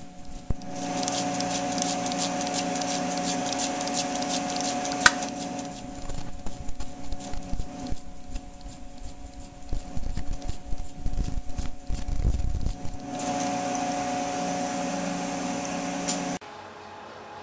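Drilling machine running with a steady hum and whine, broken in the middle by several seconds of irregular low rumbling and knocking, then cut off about sixteen seconds in.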